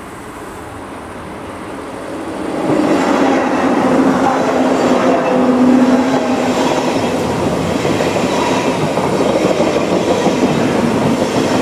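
SBB electric passenger train passing close by at speed. It grows louder as it approaches, then runs as a steady rush of wheels on rail with a low hum from about two and a half seconds in.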